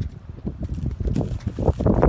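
Footsteps crunching and rustling through dry corn stubble and broken stalks, irregular steps that get louder in the second half.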